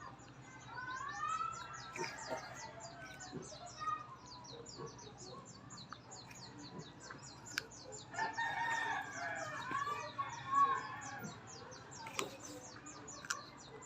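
Chickens calling in the background, with two drawn-out, crow-like calls, one about a second in and one about eight seconds in, over a fast, even high-pitched chirping. A few sharp clicks stand out near the end.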